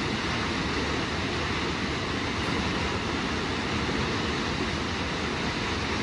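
Kegon Falls, a tall plunge waterfall, with falling water rushing in a steady, unbroken noise.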